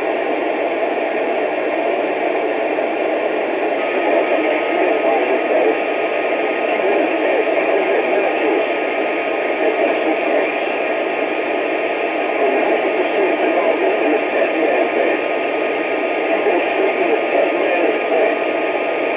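Two-way radio receiver static: a steady, loud rush of hiss with the thin, cut-off sound of a radio speaker and no clear voice.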